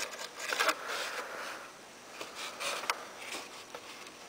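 Handling noise: hands rubbing and scraping a bamboo-skewer pushrod and tape against a foam model airplane, in a few short scuffs.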